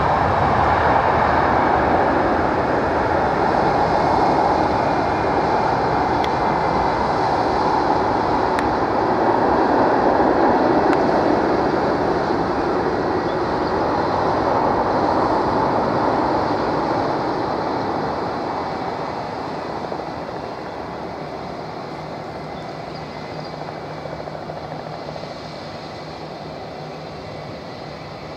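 Airbus A320 airliner's jet engines running as it taxis, a loud, steady rushing noise that eases off about two-thirds of the way through, leaving a quieter, steady hum.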